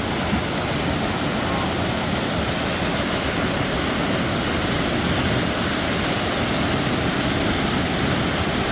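Waterfall rushing steadily: a loud, even sound of falling water with no breaks.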